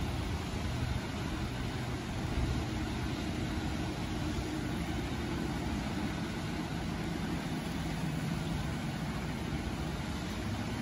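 Steady rain during a thunderstorm, with a low, steady hum underneath.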